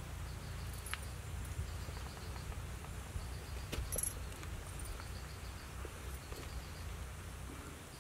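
Faint outdoor ambience: an insect, likely a cricket, chirping in a steady run of short high pulses over a low, even rumble, with a few small clicks.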